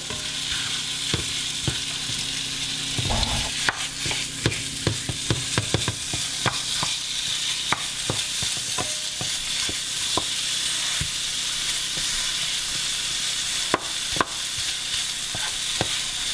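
Turkey sausage meat sizzling in butter in a nonstick skillet. A wooden spoon scrapes and taps irregularly against the pan as it crumbles the meat.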